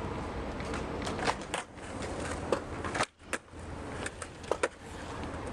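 Longboard with Carver C7 trucks rolling and carving on a concrete skatepark bowl: a steady wheel rumble with several sharp clicks and knocks. The sound drops out briefly about three seconds in.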